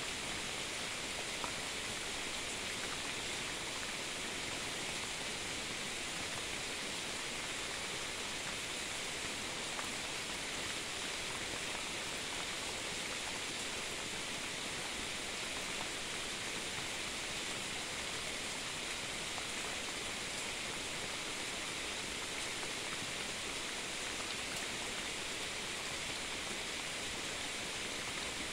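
Rain falling steadily, an even hiss with no thunder.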